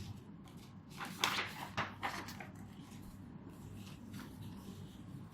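Faint handling sounds: a few short scratches and taps about one to two and a half seconds in, over a low steady hum.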